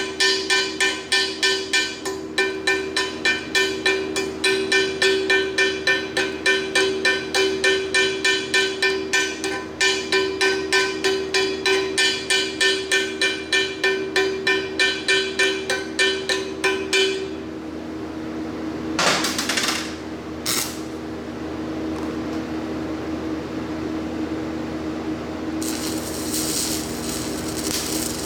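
A hammer rhythmically peening a cast iron casting, about two to three blows a second, each ringing at the same tones; the hammering stops about 17 seconds in. Two short scraping bursts follow, then a steady hiss near the end.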